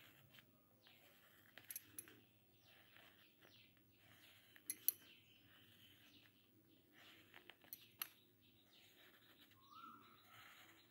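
Faint scratching of a pen drawing lines on paper in short strokes, with a few sharp clicks.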